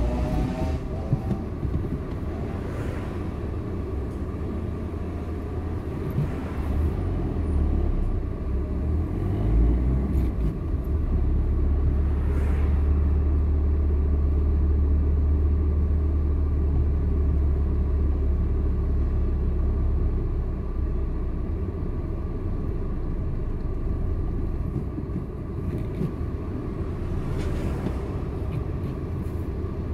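Road noise inside a moving car's cabin: a steady low rumble of engine and tyres, heavier for several seconds in the middle.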